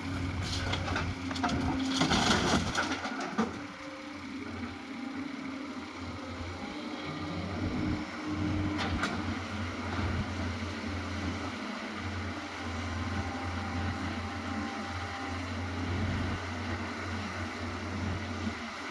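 Excavator's diesel engine running steadily, with a brief loud rough noise about two seconds in.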